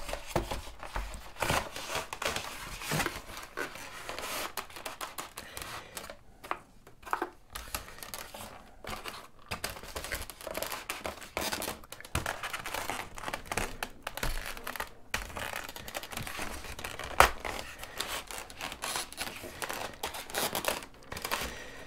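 EPO foam wing being slid and worked into the fuselage of a Volantex Saber 920 RC plane by hand: irregular rubbing and rustling of foam parts with light knocks, and one sharp click about 17 seconds in.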